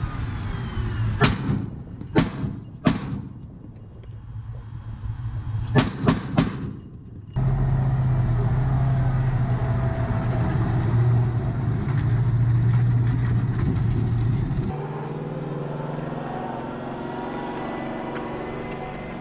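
Bradley Fighting Vehicle's 25 mm turret cannon firing: three single shots about a second apart, then a quick burst of three. After an abrupt cut, the Bradley's engine runs steadily as the vehicle drives, changing in tone about fifteen seconds in.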